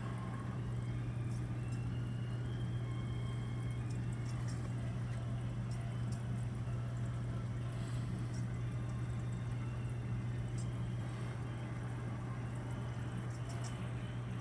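A steady low hum with a faint wash of running water beneath it, and a few faint ticks.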